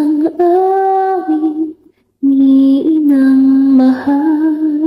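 Female voice singing a slow lullaby in long held notes, breaking off briefly about two seconds in.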